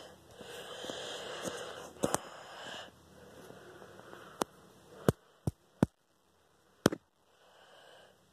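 Handling noise on a handheld phone: a soft rustle for about the first three seconds, then six or so sharp clicks and taps scattered through the middle, with near quiet between them.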